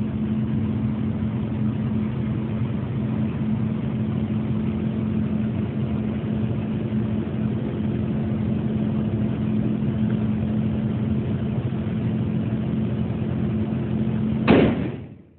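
Steady mechanical hum with a low steady tone, then near the end a single loud shot from a .50 Beowulf (12.7x42mm) AR pistol, after which the sound cuts off.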